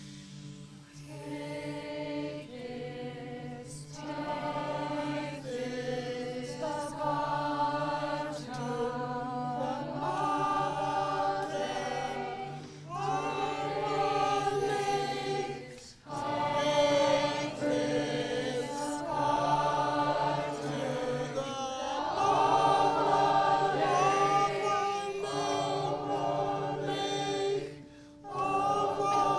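Choir of men and women singing unaccompanied, a steady low held note sounding under shifting sung phrases above it. The singing breaks off briefly about halfway through and again near the end.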